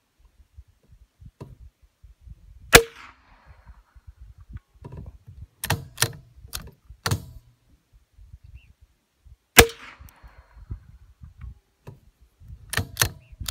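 A Savage Mark II FV-SR .22 LR bolt-action rifle is fired twice, about seven seconds apart, each shot a sharp crack with a short echo after it. A few seconds after each shot the bolt is worked by hand in a quick run of metallic clicks.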